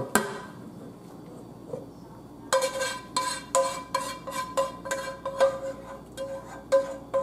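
A pan struck over and over as the last of the meat sauce is knocked into the spaghetti pot. About two and a half seconds in, quick taps begin, roughly three a second, and each one rings with the same metallic tone.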